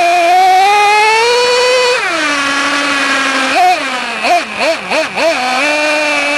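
Traxxas T-Maxx's 2.5R two-stroke nitro engine, heard from on board the truck: revving up steadily for about two seconds, falling back, then a quick run of about five short throttle blips a little past halfway before holding a steady pitch.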